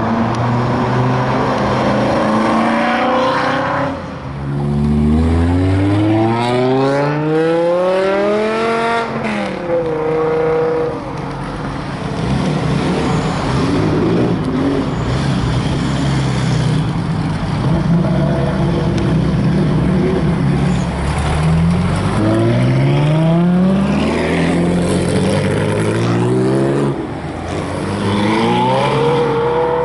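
Supercar engines accelerating hard, several cars in turn: each engine note climbs steeply in pitch, drops at an upshift and climbs again, with a steadier engine drone between the runs.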